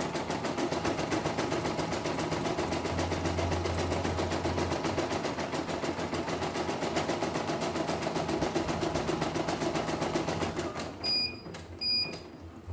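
CNY E900 computerized embroidery machine stitching, its needle running in a rapid, even rhythm. It stops about eleven seconds in, and two short electronic beeps follow about a second apart near the end.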